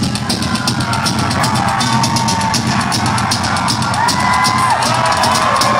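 Rock band playing live at full volume, heard from the crowd: a fast, steady drumbeat on bass drum and cymbals under electric guitars and bass, with sustained notes that slide up and down in pitch.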